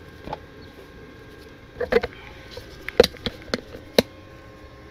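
Handling noise: a handful of short, scattered knocks and clicks from gloved hands and the camera being moved around under the car, the loudest about three and four seconds in.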